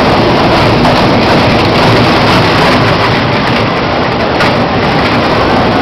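Kiddie train ride in motion: a loud, steady rumble and rattle of the small train running along its track.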